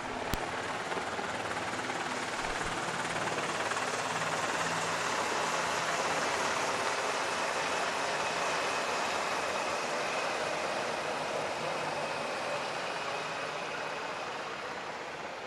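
Two UH-60 Black Hawk helicopters flying overhead together. Their rotor and engine noise swells to its loudest about six seconds in, then slowly fades as they pass.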